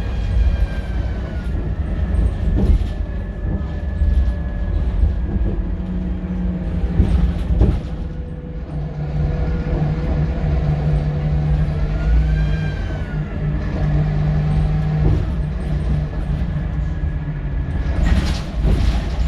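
Scania K230UB bus's five-cylinder diesel engine running under way, with a whine from the turbo and differential that falls early on and rises and falls again midway as the bus changes speed. A short burst of hiss near the end, with knocks from the body throughout.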